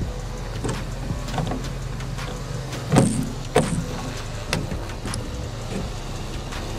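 Hand pop-rivet gun squeezed to set blind rivets in a sheet-metal roof plate, the mandrels snapping with sharp cracks several times, the loudest about three seconds in. A steady low hum runs underneath.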